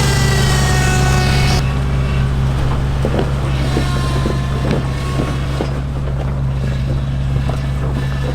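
An off-road rock-crawling truck's engine running steadily at low revs, with a falling whine in the first second and a half and a few sharp knocks a few seconds in, as tyres and chassis work over rock. Some wind noise on the microphone.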